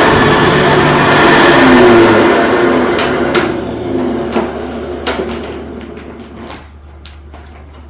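Hoover U4008 upright vacuum cleaner running at full speed, then switched off, its motor spinning down and fading over several seconds. A few sharp clicks and knocks sound during the run-down.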